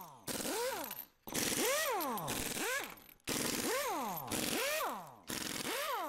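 Small electric screwdriver driving laptop bottom-cover screws, its motor whirring up in pitch and back down about six times in quick succession.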